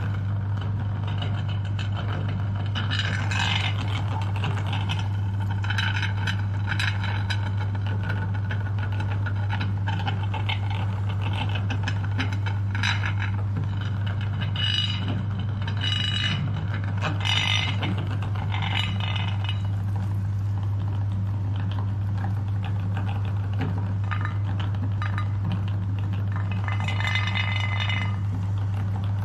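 Electric meat grinder's motor running with a steady hum. Irregular scraping and rattling sounds come from the grinder as jelly is fed through it.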